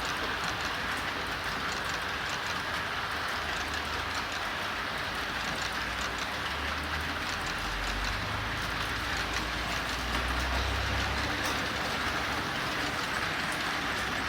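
A Japanese National Railways freight train running past, a steady rumble of wheels on rail with scattered clicks from the rail joints.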